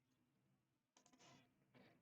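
Near silence: room tone during a pause in speech.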